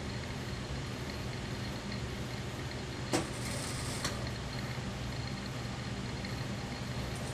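Industrial sewing machine with its motor humming steadily. About three seconds in there is a sharp click, then roughly a second of stitching.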